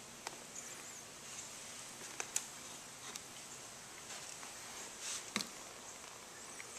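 Faint handling noises of hands working woven carbon fiber cloth and a paintbrush: scattered light clicks and ticks, with a brief rustle and a sharper click about five seconds in, over a steady faint hiss.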